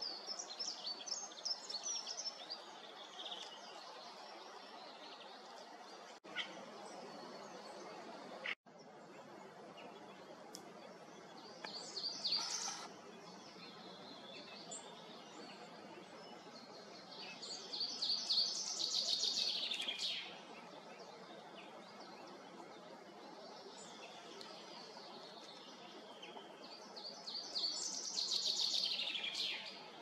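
Wild songbirds singing: a few song phrases of a couple of seconds each, several seconds apart, the longer ones ending in a falling sweep, over a steady background hiss.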